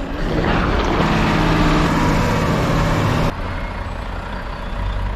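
Volvo FM 460 hook loader lorry's air horn sounded in one long blast of about three seconds that cuts off sharply, over the low running of its diesel engine.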